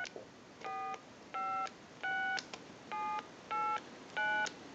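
Touch-tone keypad of a Telemania duck telephone sending DTMF tones: six short two-note beeps, one per key pressed, about two-thirds of a second apart, with the tail of one more right at the start. They are heard from the handset's earpiece through an amplified pickup, as the keys are dialled in order to check the keypad.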